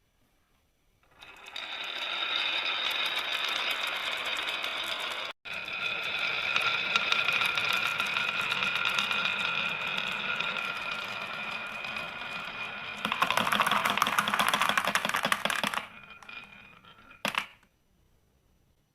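Marbles rolling down a wooden marble-run track, a steady rolling whir packed with rapid clicks and rattles. It starts about a second in, breaks off for an instant near the middle, and swells to its loudest clatter near the end before fading, with one last short rattle.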